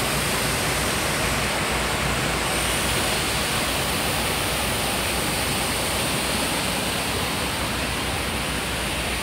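Stream water rushing over rocks: a steady, even rush with no breaks.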